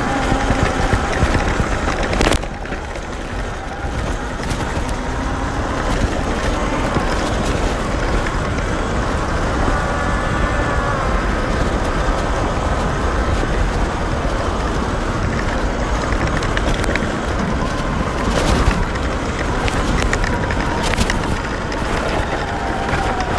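Sur-Ron electric dirt bike ridden at low speed: a faint wavering motor whine over heavy wind and rumble noise, with a sharp knock a couple of seconds in.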